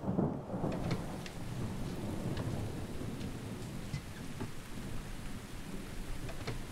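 Thunder rumbling, loudest right at the start, then easing into steady rain with scattered sharp taps.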